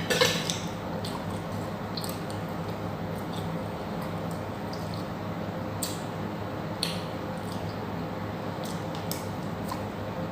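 Close-up eating sounds: wet squishing and smacking of chewing goat caldereta, with a few short clicks scattered through. A steady low hum runs underneath.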